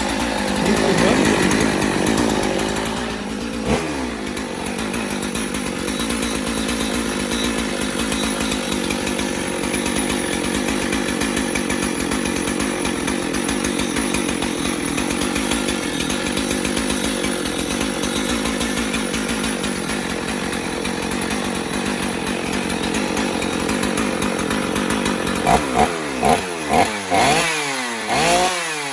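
Used two-stroke chainsaw engine running steadily, then revved in a series of quick throttle blips near the end, its pitch rising and falling with each. The owner thinks the carburetor may need adjusting because the saw runs up really high.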